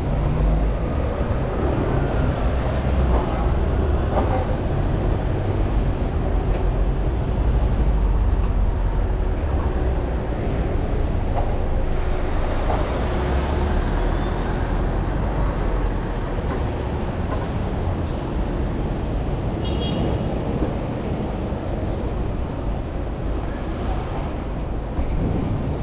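City street traffic with the low rumble of a large vehicle's engine close by, heaviest in the first half and easing after about fourteen seconds.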